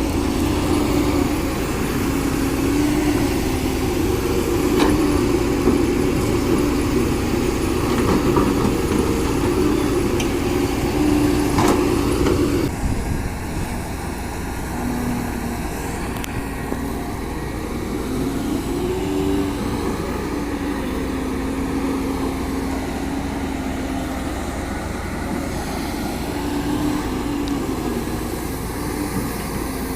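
CAT 320D hydraulic excavator's diesel engine running under working load, its pitch shifting as the hydraulics are worked, with a few faint knocks. The sound changes abruptly about halfway through and becomes duller.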